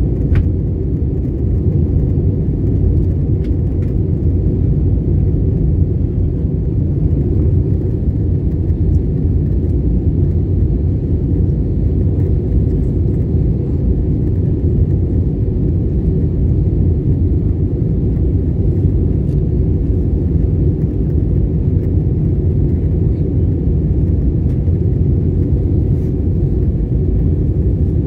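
Steady low rumble of airliner cabin noise in flight, heard from inside the cabin at a window seat.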